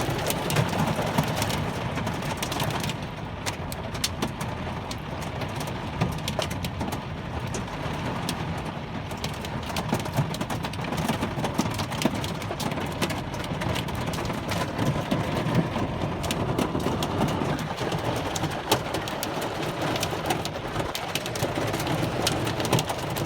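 Heavy rain and hail pelting a car's body and windows, heard from inside the car: a dense steady downpour noise peppered with many sharp ticks of hailstones striking.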